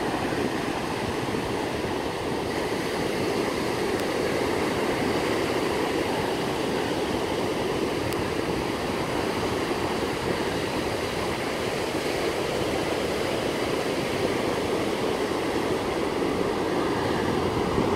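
Surf from a rough sea breaking on a sandy beach and the reef beyond, a steady rushing noise.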